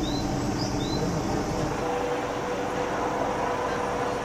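Steady hum of running engines and machinery, with two short high chirps in the first second.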